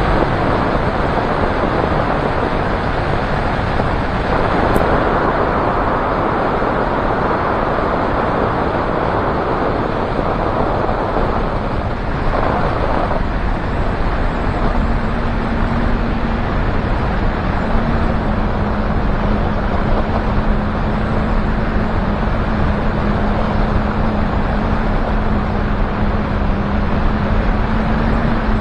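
Light aircraft in flight: steady engine and propeller drone buried in heavy wind rush on a microphone mounted outside the airframe. A faint steady low hum joins about halfway through.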